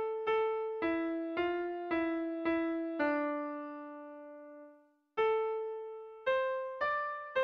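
Background music: a slow melody on a piano-like keyboard, played one note at a time at about two notes a second. About three seconds in, one note is held longer, and a short silence follows near five seconds before the notes resume.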